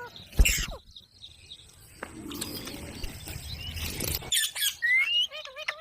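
Ringneck parrot chirping, with short rising whistles and clicks from about four and a half seconds in. A sharp knock sounds about half a second in, followed by faint scratchy noise.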